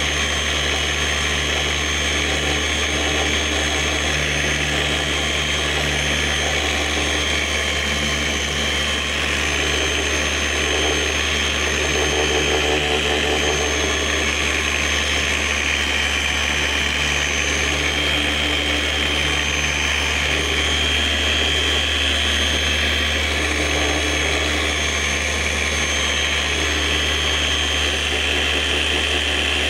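Electric polisher running steadily, spinning a polishing pad with compound against a plastic headlight lens, with a constant motor hum and whine.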